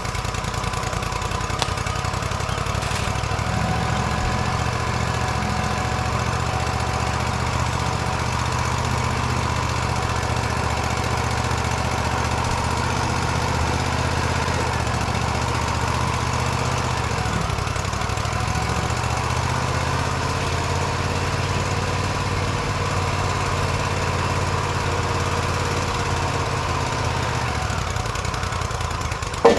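Portable bandsaw sawmill running steadily, its engine driving the blade as it gang-rips a stack of inch-thick poplar boards into strips. The engine note shifts slightly about two-thirds of the way through.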